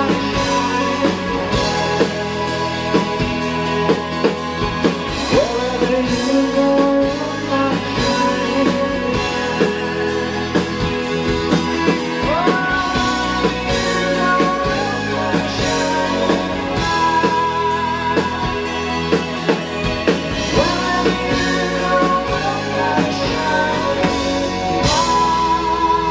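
Live rock band performing a song: a male singer over electric guitar, bass and a drum kit with a steady beat.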